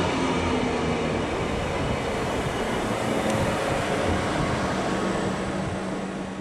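Double-deck regional train coaches rolling past close by: a steady rumble and rattle of wheels on rail with a steady low hum, easing slightly near the end.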